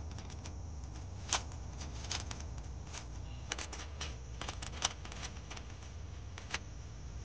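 Hard plastic clicking and snapping as a black folding plastic case is unfolded by hand, with a dozen or so sharp clicks at irregular intervals over a low steady rumble.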